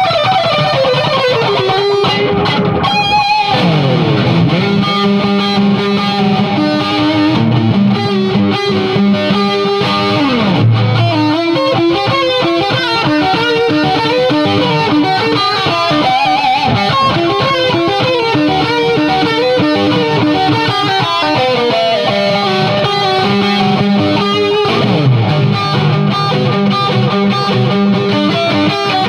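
Electric guitar played through the rebuilt Crate Vintage 60 tube amp, now modded for high gain: a lead line of held notes with vibrato. It has long downward slides about three seconds in and again about ten seconds in.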